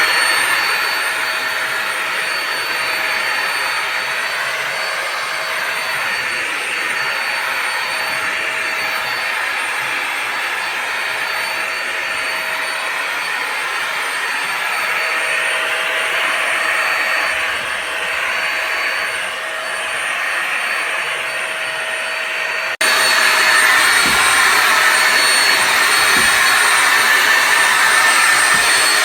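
Bissell Symphony Pet vacuum and steam mop running, its vacuum motor giving a steady whine over a rushing suction noise. The sound jumps abruptly louder about 23 seconds in.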